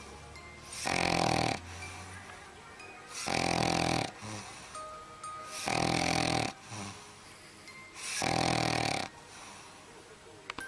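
A sleeping dog snoring: four long snores, one about every two and a half seconds.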